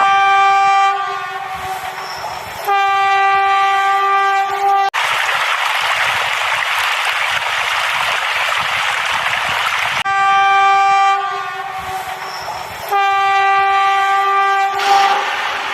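Train horn sounding two long blasts, then about five seconds of a train's rushing rumble, then two more long horn blasts.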